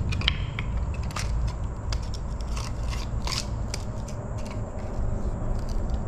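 Clothing rustling and scraping against a body-worn camera's microphone as the wearer crouches and moves his arms, with scattered sharp clicks and a steady low rumble.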